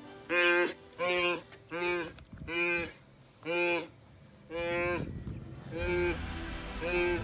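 Wildebeest calling in distress while a cheetah holds it by the throat: eight short, loud, moo-like bleats, about one every 0.8 seconds.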